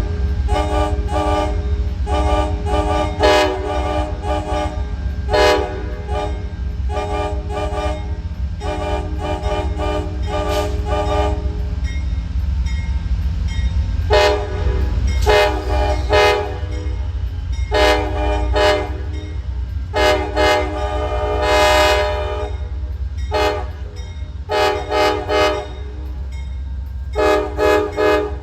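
Amtrak P42DC diesel locomotive's multi-chime air horn played as a horn show: a quick rhythmic run of short toots for about twelve seconds, a short pause, then longer blasts with the longest near the two-thirds mark. A steady low locomotive engine rumble runs underneath.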